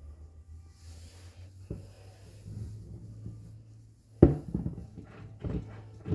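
A low steady hum, with a sharp knock a little past the middle followed by several softer knocks and clatter, like objects being handled and set down.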